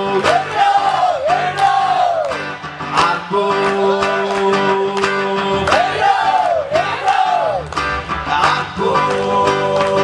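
Live song on a strummed acoustic guitar with a man singing long notes that slide up and down over held chords.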